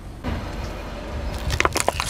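Car tyre rolling over and crushing something brittle: a low rumble of the wheel, then a quick run of sharp cracks and snaps about a second and a half in.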